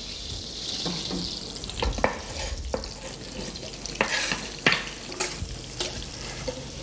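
Diced guanciale frying in a copper pan with olive oil, garlic and butter: a steady sizzle, with several sharp knocks against the pan and board as the pieces are worked into it.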